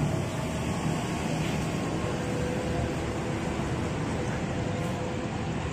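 Steady low rumble of idling bus engines and machinery, with a faint steady tone through the middle.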